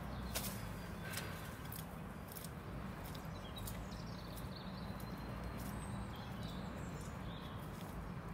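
Footsteps on a wet, muddy road, about one step every two-thirds of a second, over a steady low rumble.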